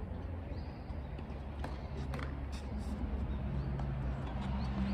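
Steady low outdoor rumble with a few short, light clicks or taps scattered through the middle.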